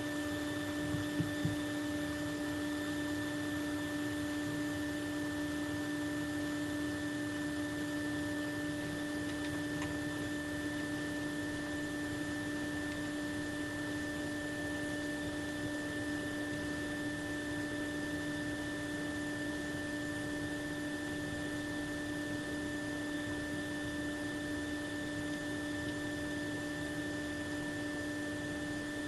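Steady electrical hum: a constant low tone with higher overtones over a soft, even hiss, unchanging throughout.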